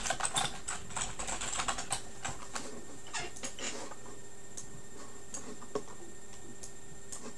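Typing on a computer keyboard: a quick run of keystrokes for about two seconds, thinning to scattered clicks, then only an occasional click in the second half.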